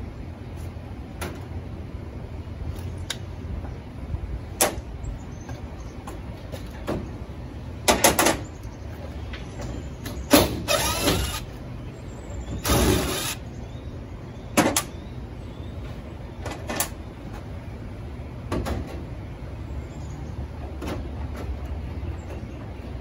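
A few short runs of a cordless drill on the trailer's side wall, the loudest near the middle, among scattered taps and knocks on the panel, over a steady low hum.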